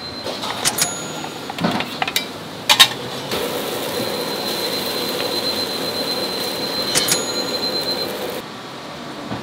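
Restaurant kitchen clatter: a handful of sharp, ringing metallic clinks, with a steady hiss that starts about three seconds in and stops about a second before the end.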